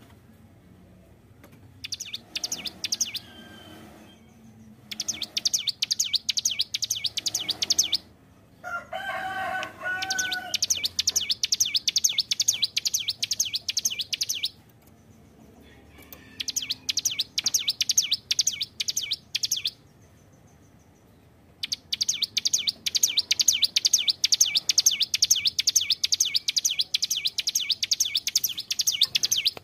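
Ciblek gunung (a prinia) singing in bursts of rapid, high-pitched repeated notes, several seconds each, with short pauses between; the last burst runs longest. A lower, different call is heard briefly about nine seconds in.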